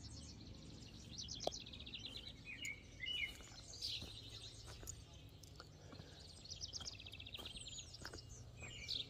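Birds singing outdoors: a rapid high trill lasting about a second, heard twice, with scattered short chirps in between, over a faint low steady hum.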